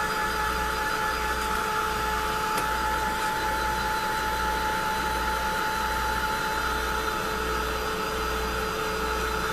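Handheld hot-air tool blowing steadily with a constant whine, drying the paint and medium on a craft piece.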